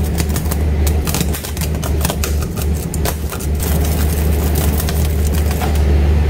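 Flash butt welding of steel rails: the electric current flashing across the rail ends gives rapid, irregular crackling and popping over a steady low machine hum. The crackling thins out after about three and a half seconds.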